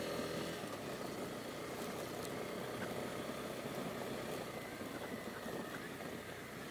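Honda CB250R's single-cylinder engine running steadily at low speed, with tyre and wind noise on a gravel track, heard faintly through a helmet-mounted camera microphone.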